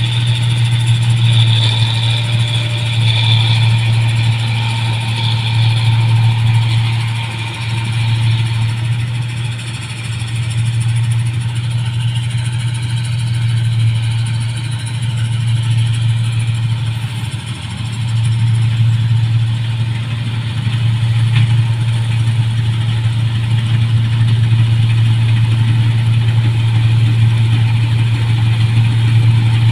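New Holland 1545 combine harvester running steadily: a deep, even engine drone with a fainter high whine from the working machinery, dipping slightly in loudness a couple of times.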